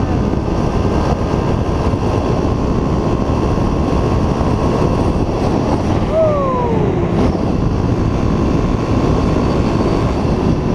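Pit bike engine running at speed, almost buried under heavy wind rumble on a helmet-mounted camera. About six seconds in, a whine falls in pitch over about a second as the revs drop.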